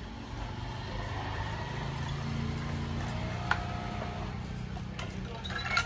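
Steady low mechanical hum like a running engine, with one sharp click about three and a half seconds in and a short clatter of clicks near the end.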